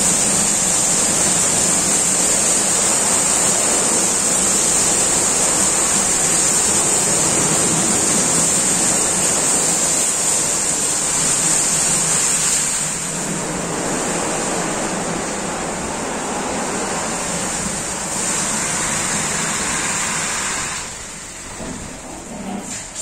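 Automatic rollover car wash gantry running over a car: rotating brushes and water jets in a steady rush of spraying water. The high hiss eases about halfway through and the whole sound drops near the end.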